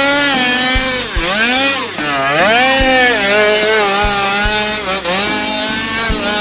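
Off-road vehicle engine running hard. Its revs drop and climb sharply twice about a second in, then it runs steadily.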